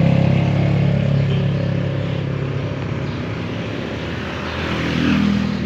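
Chevrolet Trailblazer engine running steadily just after starting, loudest at first and then settling, with a slight swell near the end. It runs now that the dirty relays behind its no-crank, no-start fault have been cleaned.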